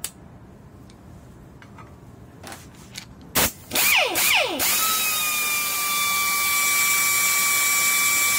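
GS-1017Q pneumatic screwdriver, a two-hammer type with handle exhaust, running free with no load. A click comes at the start as a bit goes into the chuck. About three and a half seconds in, the trigger is blipped a few times, each short spin-up dying away in a falling whine. The trigger is then held, and the motor runs steadily at free speed: a high whine over a hiss.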